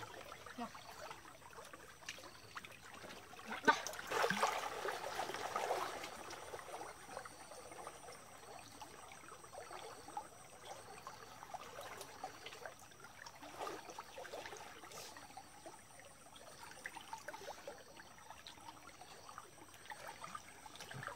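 Shallow stream water trickling steadily, with a louder stretch of splashing about four seconds in as people wade and move through the water.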